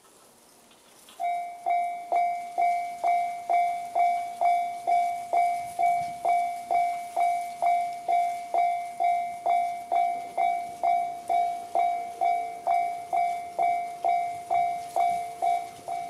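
Japanese railway level-crossing alarm, the JR standard electronic warning sound, starting about a second in and sounding a ringing 'ding' that repeats about twice a second, each stroke fading before the next. It warns that a train is approaching and the crossing is closing.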